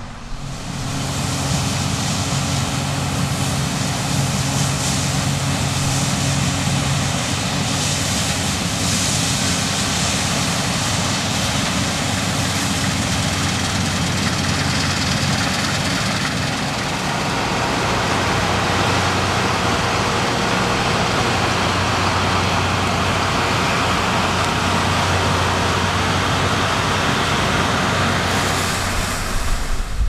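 Diesel harvest machinery running steadily at close range: a constant engine drone under a broad mechanical rush, the engine note shifting a little partway through.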